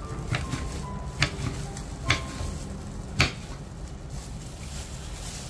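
Kitchen knife slicing a red chili on a wooden cutting board: four sharp taps of the blade striking the board, roughly one a second, the last the loudest.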